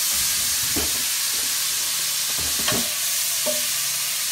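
Cubes of sirloin steak sizzling in a very hot oiled pan, a steady hiss, with a few knocks and scrapes as the meat is stirred in the pan; the loudest knock comes a little past halfway.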